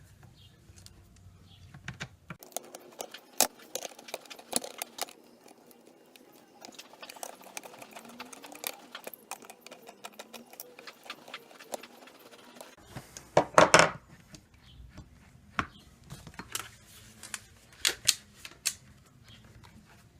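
Irregular small metallic clicks and scrapes of a hand tool tightening the bolts on a tumble dryer's aluminium door hinge, with a louder clatter about two-thirds of the way through.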